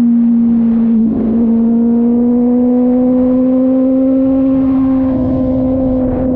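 Kove 450 Rally motorcycle's single-cylinder engine running under way at a steady pitch, with a short dip about a second in and then a slow climb in pitch, over a low rumble of wind and road.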